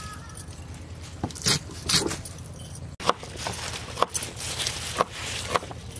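Fresh radishes and their leafy tops being handled and trimmed by hand: a scattered run of crisp snaps, rustles and light clicks at irregular intervals.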